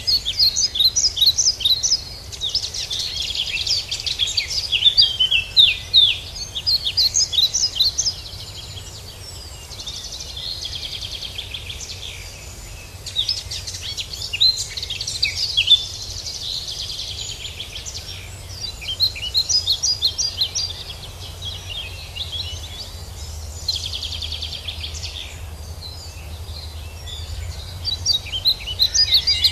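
Songbirds singing in repeated bursts of rapid, high chirping notes, with a faint low rumble underneath.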